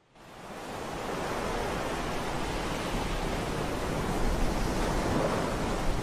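Ocean surf: a steady wash of breaking waves, fading in from silence over the first second.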